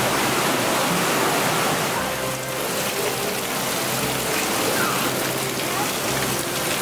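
Waterfall and gorge stream rushing: a steady, even hiss of falling water that fills the sound, with faint voices of people underneath.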